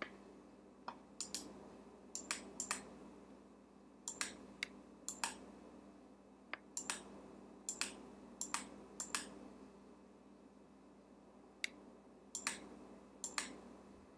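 Sharp, separate clicks of computer input at an irregular pace, about fifteen of them and several in quick pairs, over a faint steady hum.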